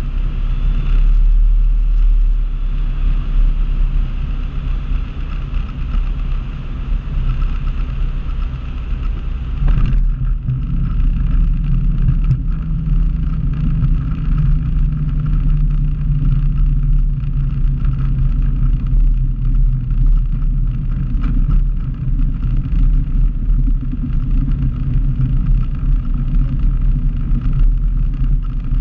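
Single-engine propeller airplane heard from inside the cockpit: engine and propeller running at low power with a steady low rumble, plus airflow and wheel rumble as it lands and rolls out on the runway. The higher rushing noise drops away about a third of the way through as the plane slows.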